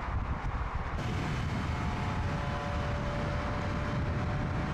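VW Golf R Variant prototype's turbocharged four-cylinder engine running at a steady speed on track, a steady engine drone coming in about a second in over a low rumble of wind on the microphone.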